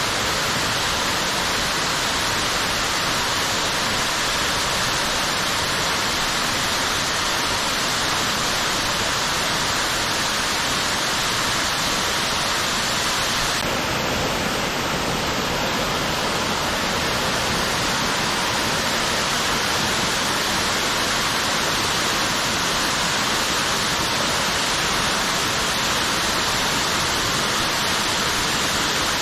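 Waterfall, a cloth-type fall sheeting over rock, pouring steadily: an even, unbroken rush of water with a small shift in tone about halfway through.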